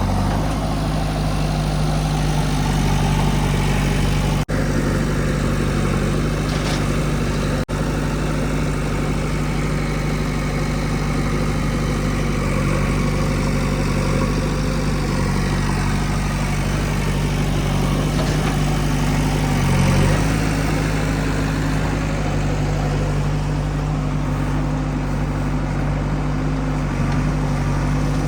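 Heavy diesel engine of a tractor or backhoe running steadily at a constant speed, with a deep, even hum. The sound cuts out briefly twice, a few seconds in.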